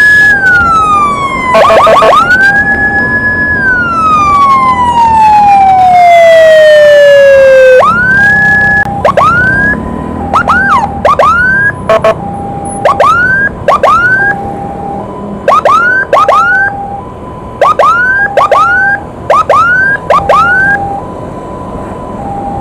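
Electronic emergency sirens, loud. One siren rises and holds, then falls in long wails, and from about eight seconds in switches to quick rising whoops, about one or two a second, in short runs. Underneath, a second siren alternates steadily between two tones and carries on alone near the end.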